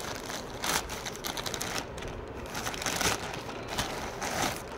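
Plastic courier mailer bags crinkling and rustling as they are handled, in irregular scattered bursts.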